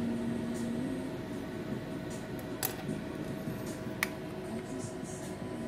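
Two short, sharp clicks about a second and a half apart over a steady low electrical hum.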